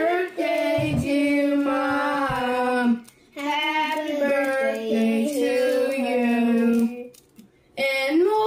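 High voices singing a melody in held notes, in three phrases with short breaks about three seconds in and about seven seconds in.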